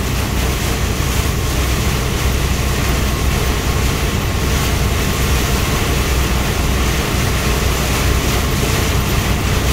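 Heavy downpour pelting the windshield and cab of a moving truck, a steady loud hiss over the low, even drone of the truck's engine and tyres on the wet road.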